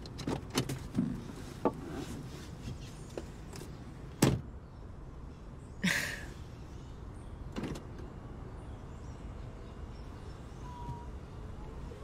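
A car door as a passenger gets out: small clicks and handling noises, then a solid thud of the door shutting about four seconds in, the loudest sound. A short rushing noise follows near six seconds, and another knock a little later, over a low steady hum.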